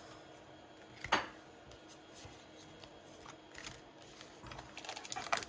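Trading cards being gathered up and handled on a tabletop. There is a single sharp tap about a second in, then a few faint clicks, building into a quick run of card clicks and rustles near the end.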